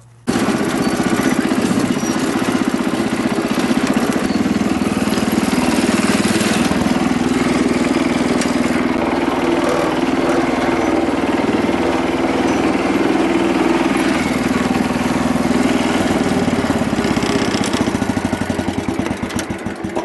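Wheel Horse garden tractor's engine running steadily under way as the tractor is driven, with no belt noise now that the drive belt has been freed from the flap it was dragging under; the sound tails off near the end.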